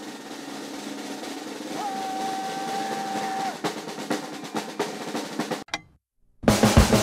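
Snare drum roll with a single steady tone held for about a second and a half partway through, followed by quick separate stick hits; it cuts off suddenly, and after a short pause a drum kit starts playing with heavy bass drum hits near the end.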